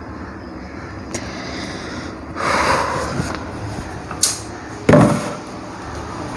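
Handling noises: a rustle of movement a couple of seconds in, a short sharp click, then a thump about five seconds in as a plastic water bottle is set down on a wooden desk.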